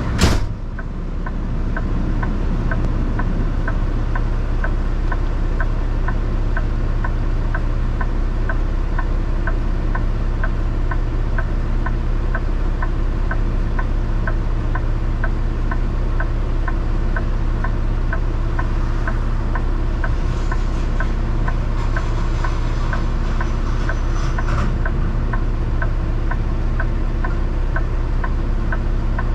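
Vehicle engine running steadily, heard from inside the cab, with an even ticking of about two to three ticks a second. A single sharp knock comes at the very start.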